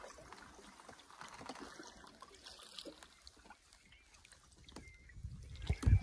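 Canoe drifting on a calm lake: faint water lapping and small knocks on the hull, then one dull, heavy low thump near the end.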